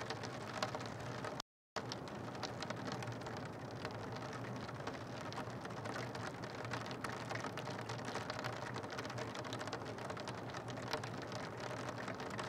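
Steady rain falling, with many small drop hits on hard surfaces close to the microphone. The sound cuts out completely for a moment about a second and a half in.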